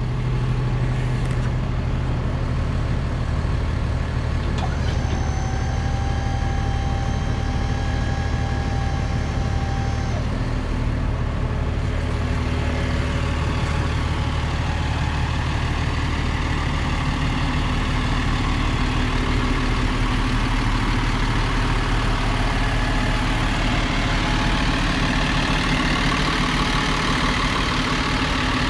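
Freightliner M2 truck's Mercedes-Benz diesel engine idling steadily. A steady high whine joins it for about five seconds, starting some five seconds in.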